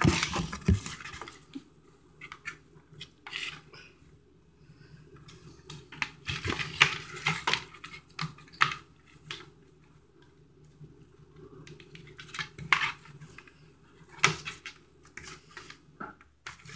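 Thick cardboard pages of a children's board book being flipped and handled: irregular clacks and rustles.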